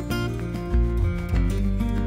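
Instrumental background music with guitar and a steady bass line.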